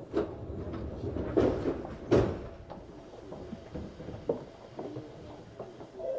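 Knocks and clunks inside a Tokyu 7700-series train car, three loud ones in the first couple of seconds and lighter clicks after, with a steady tone starting right at the end.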